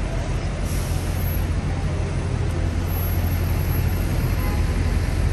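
City street traffic with a steady low engine rumble from a vehicle close by, growing slightly louder toward the end. A brief hiss comes just under a second in.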